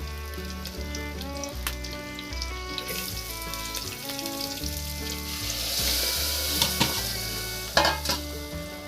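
A pot of leafy-greens curry sizzling while it is stirred, the hiss building up and strongest about two-thirds of the way in, with a few sharp clinks of the spoon against the pot near the end. Background music plays throughout.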